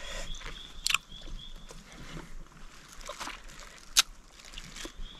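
A man chewing a mouthful of wild honeycomb, with a few sharp wet mouth clicks, the sharpest about four seconds in.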